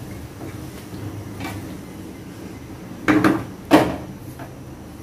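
Metal cooking utensils and pots clattering on the stove, with two loud knocks about three seconds in, over a low steady hum.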